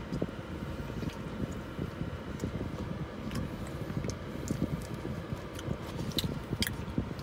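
Steady low rumble inside a car cabin, with a few faint clicks and rustles as a paper box of chicken nuggets is handled.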